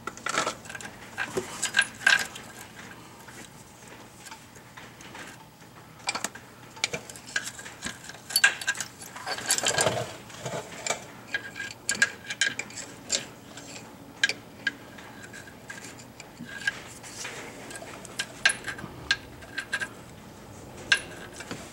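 Small metal hardware clinking and clicking as a shim, washer and bolt are worked into a bump-stop bracket by hand. The clinks come irregularly, with a few sharper metallic taps among light rattles.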